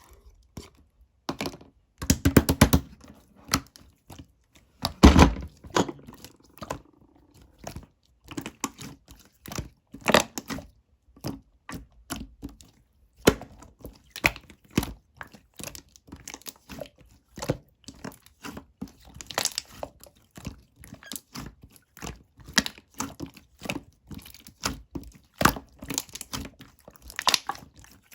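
Slime being squished, stretched and poked by hand, giving many irregular sticky clicks and pops, with quick runs of them about two seconds and five seconds in.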